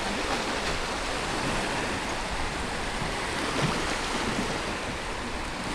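Small waves washing and breaking along the shore in a steady rush, with wind blowing on the microphone.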